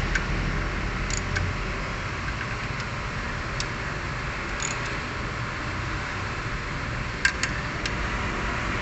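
Scattered sharp metallic clicks of a socket wrench on an extension as the automatic transmission oil pan bolts are given their final tightening. The clicks come at irregular intervals, the loudest pair about seven seconds in, over a steady noisy background.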